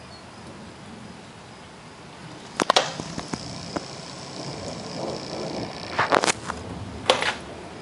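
Steady wind noise broken by a few sharp cracks, a pair near the middle and a cluster near the end.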